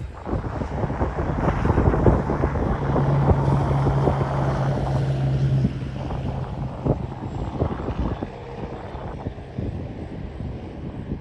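Freight wagons rolling past on the rail line: a steady rumble with a dense run of clicks and knocks from the wheels on the track. A steady low hum sounds over it for a few seconds in the first half, and the rumble drops noticeably about halfway through.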